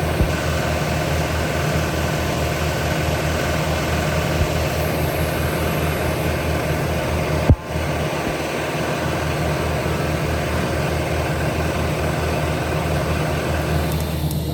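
A steady machine-like hum with a fast, even low pulsing, broken by one sharp click about halfway through.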